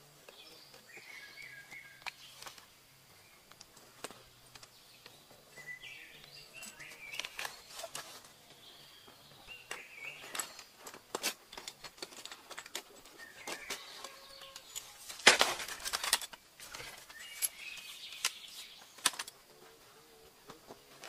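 Fishing gear being unpacked by hand: scattered clicks and knocks of rod sections and spinning reels and the rustle of a fabric backpack, with one louder rustle about two-thirds of the way through.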